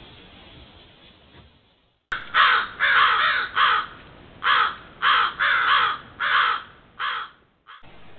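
Crow cawing loudly: about ten short calls in quick groups, starting suddenly about two seconds in.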